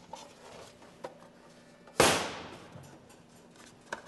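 Polystyrene housing of a GAF View-Master projector snapping open with one sharp crack about two seconds in as it is pried apart by hand, with a few small plastic clicks before and after.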